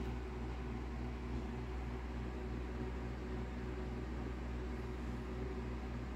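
Steady low electrical hum under a constant hiss, like a fan or mains-powered appliance running in a small room. The hum carries a faint regular pulse.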